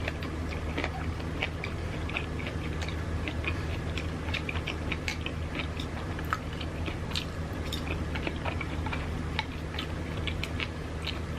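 A person chewing sushi rolls close to the microphone: many small irregular mouth clicks and smacks, over a steady low hum.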